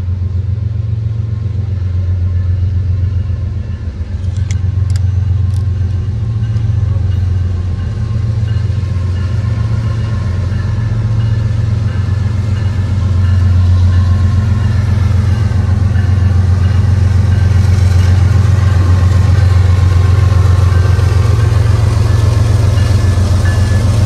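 CSX freight train's diesel-electric locomotive approaching and drawing alongside: a steady low engine drone that grows louder as the lead unit nears, loudest near the end.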